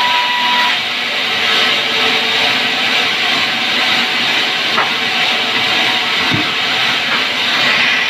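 Sawmill band saw running steadily, a loud even whirring hiss, with a thin high whine that stops under a second in. A couple of faint knocks come later.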